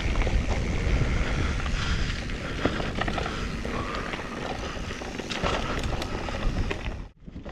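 Mountain bike being pedalled along a dirt trail: wind buffeting the microphone and tyres rolling over the ground, with scattered clicks and rattles. The sound drops out abruptly near the end.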